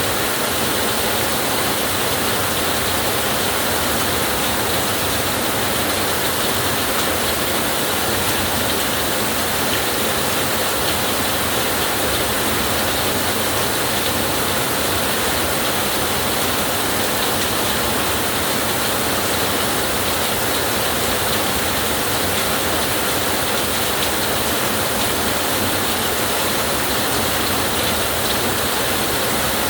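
Steady rainfall: an even, unbroken hiss of rain with no thunder in this stretch.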